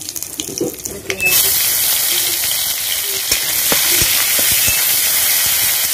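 Hot oil sizzling in an iron kadai as spices and pieces fry. The sizzle jumps up loud about a second in as more goes into the oil. A metal spatula scrapes and knocks against the wok now and then.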